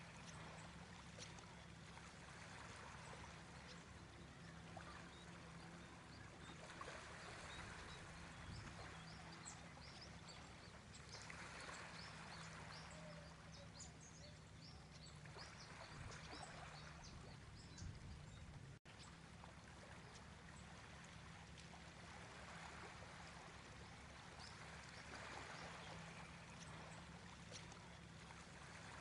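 Faint rushing noise that swells and fades every few seconds, over a low steady hum.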